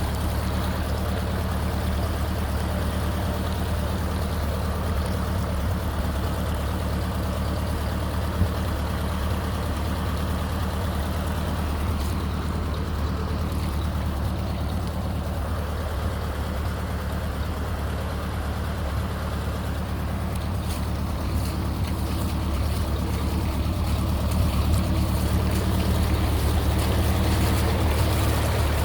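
Ford Model A's four-cylinder flathead engine running steadily, a little louder near the end.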